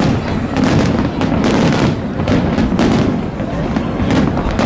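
New Year's Eve fireworks display: a dense, continuous barrage of bangs and booms following close on one another.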